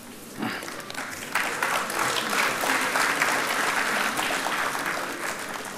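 Audience applauding: the clapping builds over the first couple of seconds, holds, then dies away near the end.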